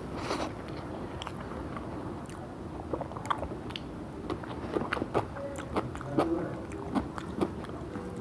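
A person chewing and biting food close to the microphone, with irregular sharp mouth clicks that come thickest in the second half.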